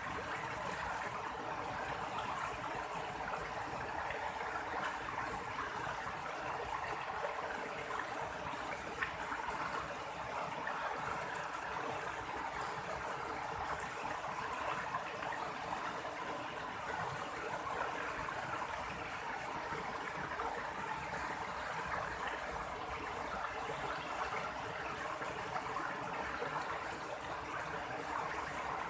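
River water flowing calmly, a steady rush and babble of the current.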